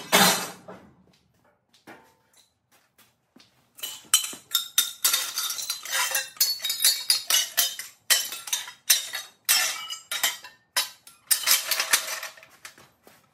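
Pieces of aluminum chair tubing clattering and clinking against each other and the concrete floor as they are handled and gathered up: a loud clatter at the start, then a quick run of light metallic clanks from about four seconds in.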